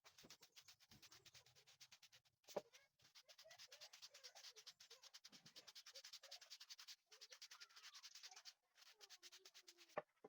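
A wooden rod being rounded by hand with an abrasive: fast, even back-and-forth scraping strokes, faint. A sharp knock sounds about two and a half seconds in and another near the end.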